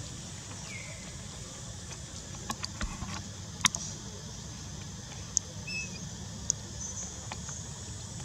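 Outdoor ambience: a steady low rumble and a steady high hiss, with several sharp clicks scattered through the middle and two short, faint chirps.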